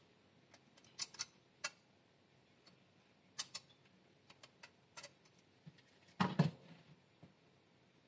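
Small screwdriver clicking against the plastic screw terminals on the back of a Sonoff NSPanel smart wall switch: a handful of sharp, scattered clicks, then a louder cluster of knocks about six seconds in as the switch is handled on the bench.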